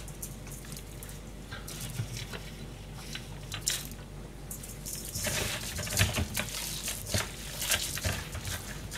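Hands handling food in stainless-steel bowls: small clicks and light wet rustling at first, then busier squishing and clicking from about five seconds in as the shrimp filling is mixed by hand in the metal bowl.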